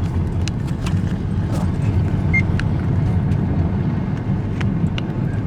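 Steady low rumble of a car's engine and road or wind noise heard from inside the cabin, with scattered sharp ticks.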